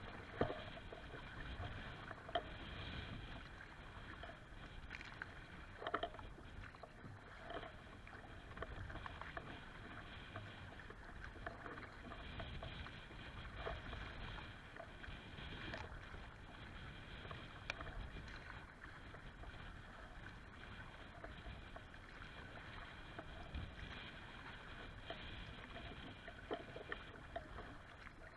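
Choppy lake water lapping and splashing against a kayak's hull, a steady wash with occasional sharper splashes.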